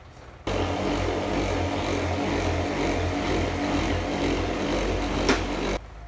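A loud power tool running steadily with a low motor hum, switched on about half a second in and cut off just before the end, with one sharp click near the end.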